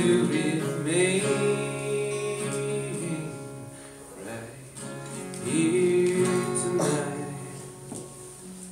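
Solo acoustic guitar with a man singing the song's closing line in long held notes; the music dies away toward the end as the song finishes.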